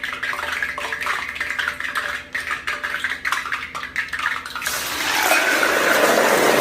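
Food in a hot pan crackling and popping with many sharp snaps, the 'papapak' the cook says it keeps making. About two-thirds in, a loud, steady sizzle starts up and builds.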